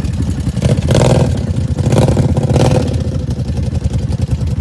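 ATV engine running and revving, with louder bursts of noise about one second in and again around two seconds in.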